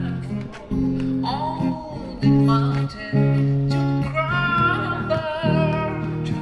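A street musician strumming chords on an acoustic guitar, the chords changing about once a second, with a wavering higher melody line over them.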